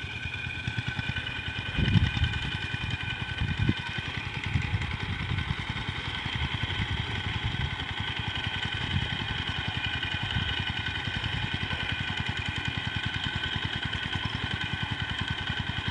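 Two-wheel walking tractors (Thai 'e-taek' iron buffaloes) ploughing a paddy field, their single-cylinder diesel engines chugging steadily, with a low thump about two seconds in.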